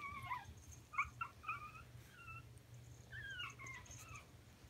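Chihuahua puppy whimpering: a string of short, high-pitched whines, each sliding down in pitch, several in a few seconds.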